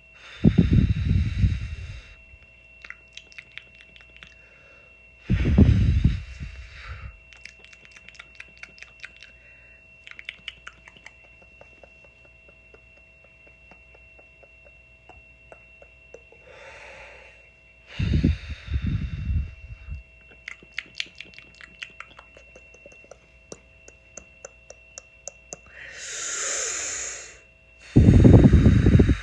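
ASMR mouth sounds close to the microphone: loud breathy bursts with a low rumble, four times, between runs of quick wet mouth clicks, and a hissing whisper about 26 seconds in. A faint steady whine sits underneath.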